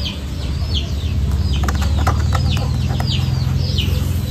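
Birds peeping: short, high chirps that fall in pitch, repeating about twice a second over a steady low hum, with a few light clicks in the middle.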